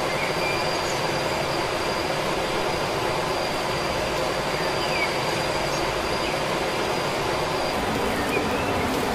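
Steady rushing outdoor noise at an even level, with a thin steady high whine that fades near the end and a few faint short chirps.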